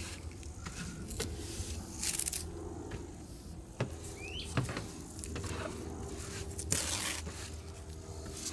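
Smoking kindling on the ashes of a campfire, smoldering just before it catches: faint hissing and crackling with a few sharp pops, and two short bursts of hiss about two and seven seconds in.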